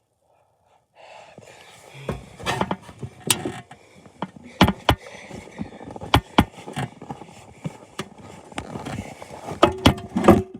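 Snow plough blade scraping along a driveway, with irregular sharp knocks and clatters. It starts about a second in.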